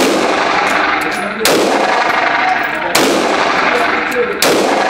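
Gunshots fired at a steady pace about one and a half seconds apart, four in all, each followed by a long echoing ring.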